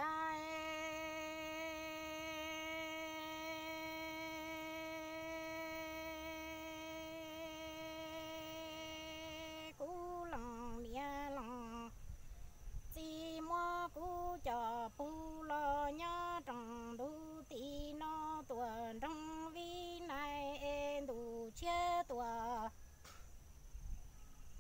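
Unaccompanied Hmong kwv txhiaj sung poetry. A single voice holds one long note with a slight waver for about ten seconds, then sings short phrases that step up and down in pitch.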